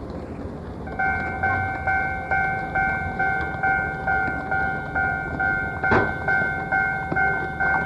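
Railway level-crossing warning bell starting up about a second in and ringing a repeating ding, a little over twice a second, over a low rumble. It is heard through an old cassette tape recording. There is a single sharp click near the sixth second.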